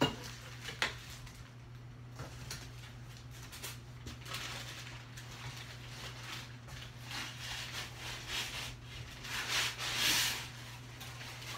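Rustling and scraping of packing material and plastic wrap as hands dig through a cardboard shipping box, loudest about nine to ten seconds in. A steady low hum runs underneath.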